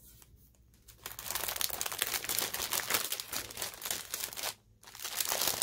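Clear cellophane bag crinkling loudly as it is handled and opened around a stack of paper goods. It starts about a second in, stops briefly near the end, then starts again.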